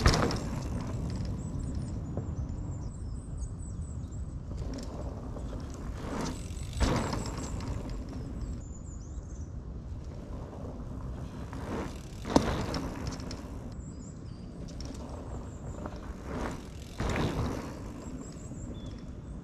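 A mountain bike passes close by right at the start, a sharp burst of tyres on the dirt trail. After that a steady low outdoor rumble with a few brief sudden knocks or rustles, the sharpest about twelve seconds in.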